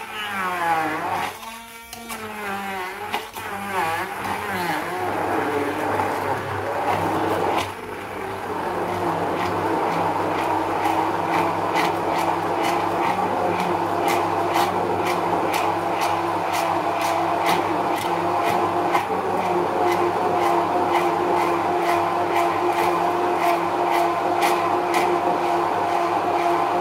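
Electric stick blender running in a plastic jug, puréeing fibrous pineapple. The motor's pitch wavers up and down for the first few seconds, then settles into a steady whine, with a regular ticking about twice a second.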